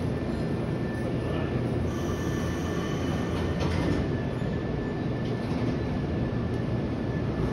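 Nankai 6300-series electric commuter train standing at the platform with its onboard equipment running: a steady low rumble under a thin, steady high whine.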